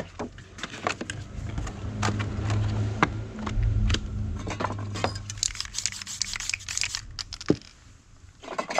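Paper stencil sheets rustling and scraping as they are handled, with scattered clicks and small knocks, over a steady low hum.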